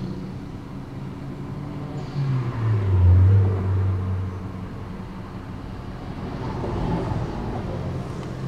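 A motor vehicle engine running. Its pitch drops about two seconds in, and it is loudest around three seconds in.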